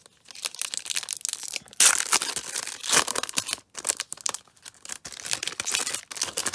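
A football card pack's wrapper being torn open by hand and crinkled, a run of loud crackly tearing and rustling.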